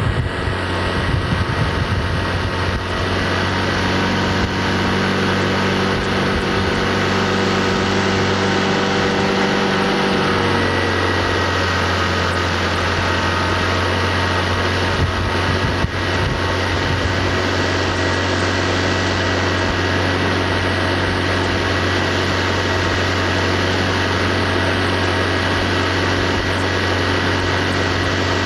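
Outboard motorboat engine running steadily with a constant hum. Its note changes about ten seconds in.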